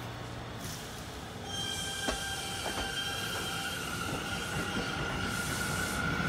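R211 subway train passing close by, growing louder. About a second and a half in, a steady high-pitched squeal sets in and holds, over the rumble of the cars and a few sharp clicks of wheels on the rails.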